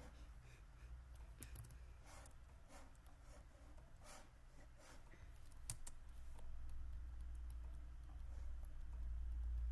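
Scattered light clicks and taps, with one sharper click about halfway through, over a low rumble that gets louder in the second half.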